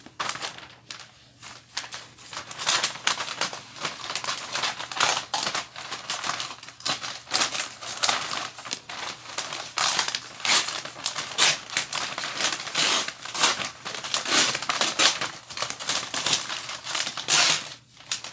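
Wrapping paper crinkling and rustling close up as it is handled and folded around a present, in irregular bursts of crackly rustles that grow busier after the first couple of seconds.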